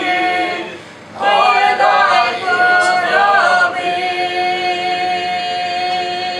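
Mixed male and female voices singing a Ukrainian folk song a cappella in close harmony. A phrase ends with a short breath about a second in, then a new phrase settles into a long held chord near the end.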